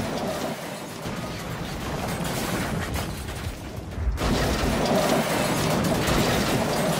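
Runaway freight trucks clattering along the track, then, about four seconds in, a sudden louder crash as they land and break apart, with wreckage rumbling and clattering on.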